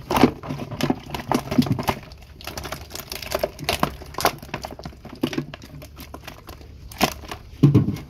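Live fish flapping and slapping against a plastic tub as they are tipped in from a plastic box, with plastic knocking and rattling. It is an irregular run of quick wet slaps and knocks, with a few louder knocks near the end.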